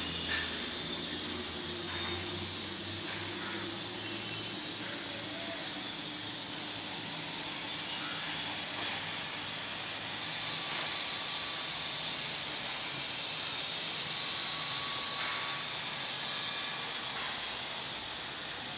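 Steady background hiss with a faint, even high-pitched ringing, growing a little louder about seven seconds in; no bird call stands out.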